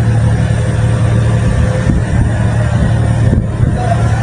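Heavy diesel construction machinery running steadily, a constant low hum with noise above it.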